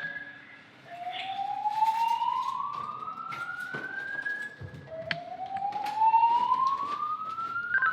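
Building fire alarm evacuation signal: a whooping tone that sweeps upward over about three and a half seconds, drops back and starts again, sounding twice in full.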